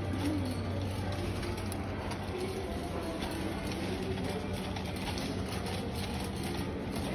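Metal shopping cart rolling across a hard store floor, its wheels and wire basket rattling steadily over a low, steady hum.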